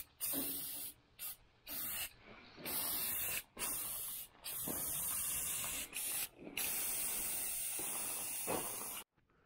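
Aerosol spray paint can hissing in a series of bursts, some short and some a second or more long, as coating is sprayed on. The spray stops suddenly near the end.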